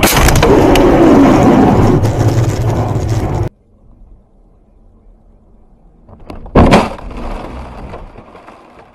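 Dash-cam audio of car crashes: a loud collision with a long rumbling crash that cuts off sharply about three and a half seconds in, then low road noise, then a second sudden loud impact about two-thirds of the way through that fades over the next couple of seconds.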